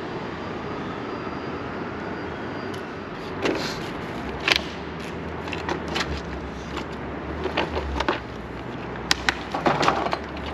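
Steady background noise with scattered sharp metal clicks and knocks from about three seconds in, as tools and parts are handled while assembling an electric dirt bike; a cluster of knocks comes near the end.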